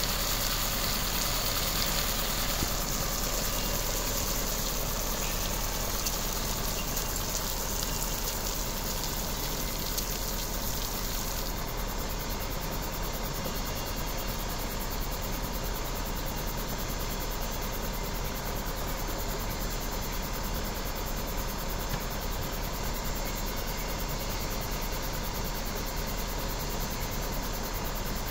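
Isuzu water tanker truck's diesel engine idling steadily. A hiss of water spraying from the rear sprinkler fades out in the first couple of seconds.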